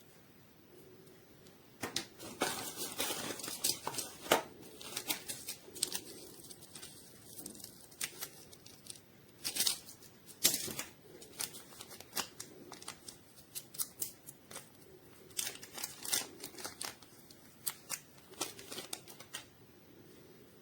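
Close handling noises: irregular sharp clicks with bursts of rustling and tearing sounds. They start about two seconds in and stop shortly before the end.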